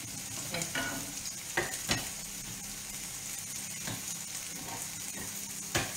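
Diced zucchini frying in a pan with a steady sizzle. About five sharp knocks of a knife on a wooden cutting board sound through it as a salmon fillet is cut.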